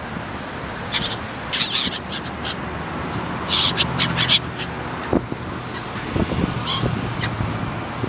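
Gulls giving short, harsh cries in several quick runs as they hover close, over steady wind noise on the microphone with a few low buffets.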